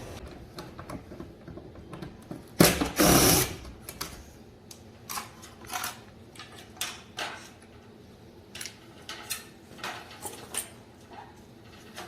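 Clicks and knocks of parts being handled while a ceiling-cassette air conditioner is being taken apart, with one loud, noisy burst lasting about a second about three seconds in.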